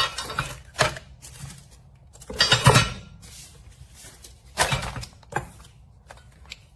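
Metal TV wall-mount parts and hardware being handled and set down: a series of clanks and knocks, with a longer rattling clatter about two and a half seconds in.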